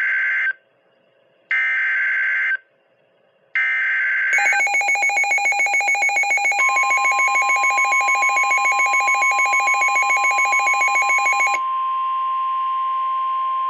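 Emergency Alert System signalling on a NOAA Weather Radio broadcast. It opens with three one-second bursts of SAME data header, each followed by a pause. Then comes a rapid electronic beeping alarm, joined partway through by the steady 1050 Hz warning alarm tone, which carries on alone after the beeping cuts off.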